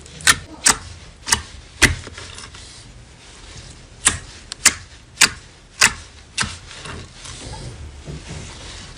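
Slime being squeezed and poked, giving sharp popping clicks about two a second as air pockets burst. There is a quieter pause of about two seconds partway through.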